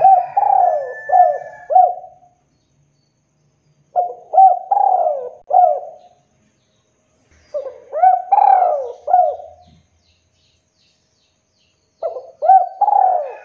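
Spotted dove cooing: four phrases of a few rolling coos each, starting about every four seconds.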